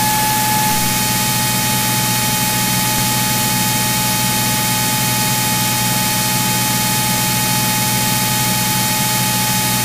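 Steady in-flight cabin noise of a Cirrus SR22: the engine and propeller drone under an even hiss with a steady high tone, unchanging throughout.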